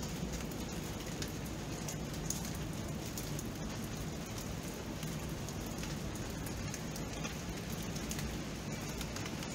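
Steady rain: an even hiss of rainfall with scattered sharp ticks of individual drops striking.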